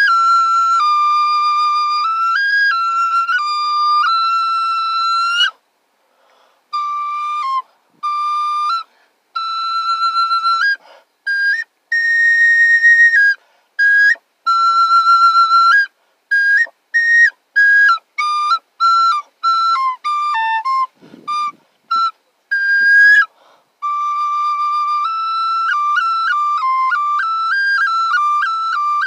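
A small flute played solo in a high register. Sustained melodic notes give way after about five seconds to short phrases with silent gaps between them, then flow continuously again near the end.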